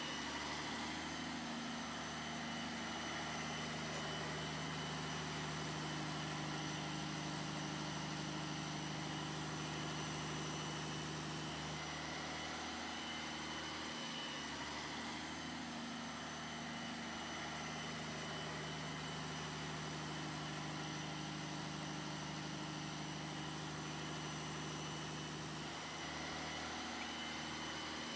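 Small electric motor of a homemade model boat running steadily, a low hum that grows and fades twice.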